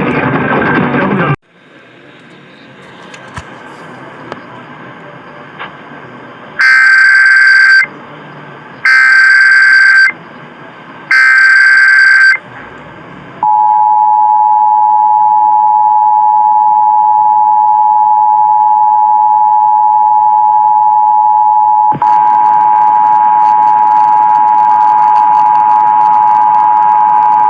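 Emergency Alert System test over AM radio: three loud, buzzy one-second bursts of SAME header data about a second apart, then the EAS two-tone attention signal (853 and 960 Hz), a steady dual tone that starts about 13 seconds in and runs on. Before the bursts, a short bit of music cuts off and faint radio static is left.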